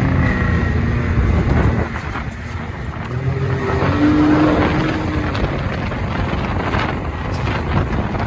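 Pickup truck engine running hard under load, its pitch shifting, with wind on the microphone, as the truck works to pull a loaded trailer out of where it is stuck.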